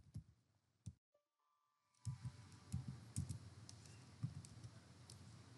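Faint computer keyboard typing: two key clicks, a second of silence, then a run of irregular keystrokes over a light hiss.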